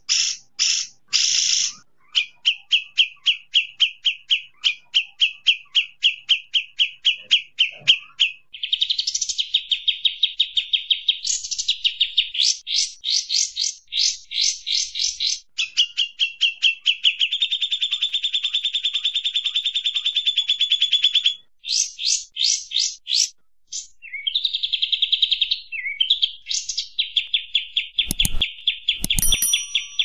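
Kapas tembak bulbuls singing and chattering in a group: fast runs of repeated high, sharp notes and trills that change from phrase to phrase with brief pauses, played as a masteran recording for a magpie-robin to copy. Near the end come two sharp clicks.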